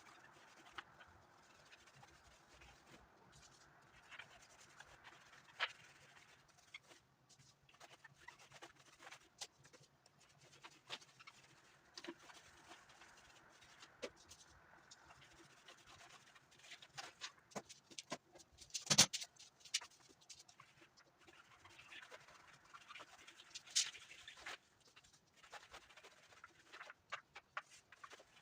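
Quiet scratching with scattered light clicks and taps: a varnish roller working over an uneven plastered wall. The sharpest click comes about two-thirds of the way through.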